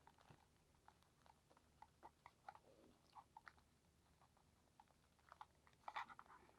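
Faint crinkling and small irregular clicks of a replacement earpad being stretched and worked by hand onto the rim of a Sony headphone earcup, with a louder cluster of crackles near the end.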